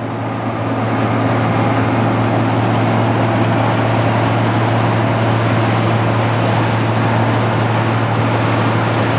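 1975 Claas Senator 85 combine harvester at work cutting and threshing wheat: its six-cylinder diesel engine and threshing mechanism give a steady, loud drone. The sound grows louder over the first second, then holds steady.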